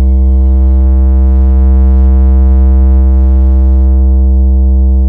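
One long, loud held bass synth note in an electronic DJ mix, very deep and steady, with no beat under it, used as a bass sound-check tone.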